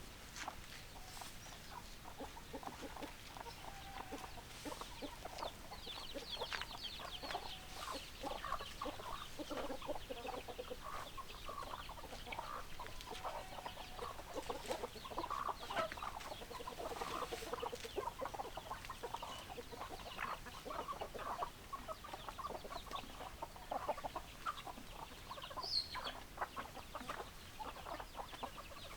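A flock of hens clucking, with many short, overlapping calls that go on without a break.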